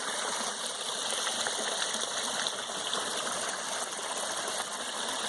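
Running water flowing steadily, an even rushing sound.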